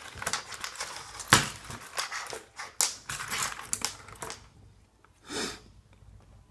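Small metal clicks and taps of tweezers working on a pin-tumbler lock cylinder as it is taken apart to get at its pins, with one sharper click about a second in. A short soft rush of noise comes about five seconds in.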